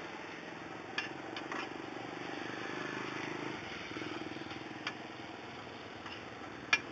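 A motor scooter's engine running close by, a steady hum that swells a little a few seconds in. There are several short, sharp clicks over it.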